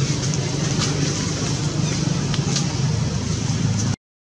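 Steady outdoor background rumble with a few faint, short high chirps over it. The sound cuts off abruptly about four seconds in.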